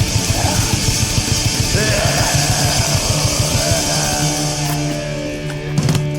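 Fast, loud rock music with distorted guitar and drums.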